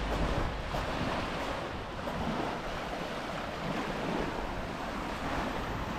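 Sea waves washing onto the shore in a steady wash that swells and ebbs, with wind rumbling on the microphone.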